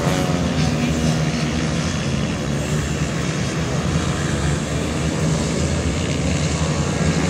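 Several 160 cc pit bike engines running at once during a race, a dense steady drone with no single bike standing out.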